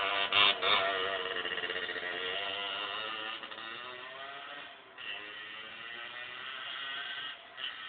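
Aprilia RS 50's 50 cc two-stroke engine running, its pitch wavering up and down. It grows quieter over the first few seconds and dips briefly about five seconds in.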